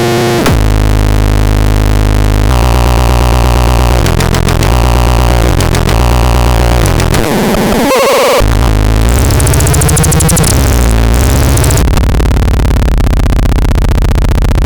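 Loud, dense electronic synthesizer sound: sustained bass notes that shift every second or two under harsh, noisy upper textures, with a brief drop about eight seconds in.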